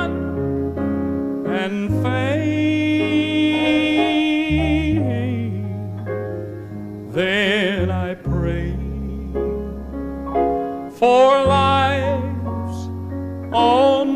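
A man singing a southern gospel song solo, holding long notes with strong vibrato, over instrumental accompaniment with sustained bass notes.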